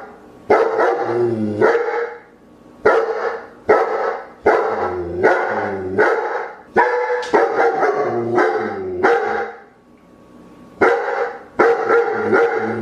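A dog barking repeatedly, about one bark a second, with a pause of about a second shortly before the end.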